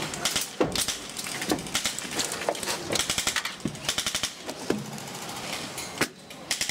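Airsoft guns firing rapid full-auto bursts, a fast rattle of about fifteen shots a second, in several short bursts with single clicks between.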